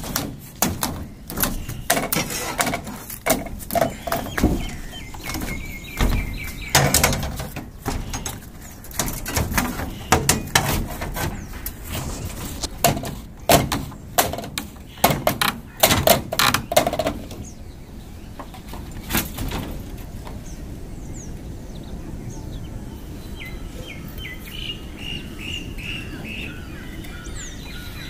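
Irregular knocks, taps and clatter of hands-on work for about the first two-thirds. After that it goes quieter, with birds chirping near the end.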